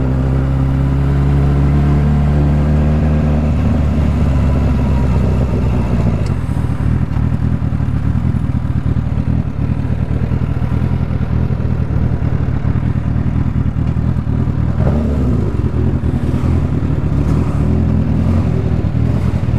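Suzuki GSX750F motorcycle's inline-four engine running under way, heard from the saddle: a steady even note for the first few seconds, then dropping to a lower, choppier note at low speed as the bike slows.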